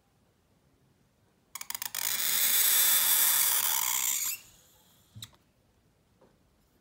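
Calligraphy pen scratching across paper in one long stroke, about two and a half seconds of steady scratchy hiss after a few ticks as the nib touches down. It cuts off as the pen lifts, followed by a single light click.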